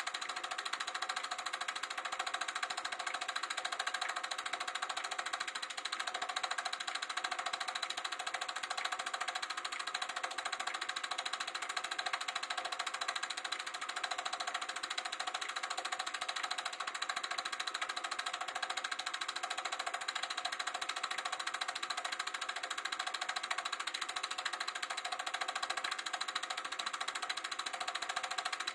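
Sankyo Dualux 1000 8mm movie projector running: a steady, fast mechanical clatter and whirr.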